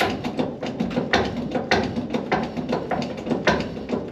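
Hydraulic bottle jack being pumped by hand, a regular clank and creak a bit under twice a second, as it pushes a wooden brace up against a caved-in steel car roof.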